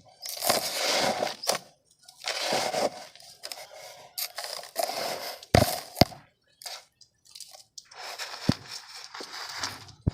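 Dry mud crumbling in a series of short bursts with brief pauses between them, and a few sharp clicks in the middle and near the end.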